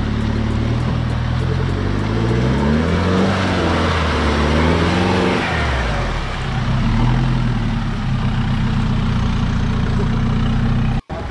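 Older-model Mahindra Thar's engine revving as it drives through deep mud. The pitch climbs and falls back about halfway through, then the engine runs steadily.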